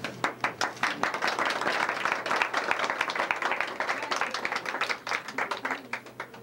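A crowd of guests applauding by hand-clapping. The clapping picks up quickly, stays thick through the middle and thins out near the end.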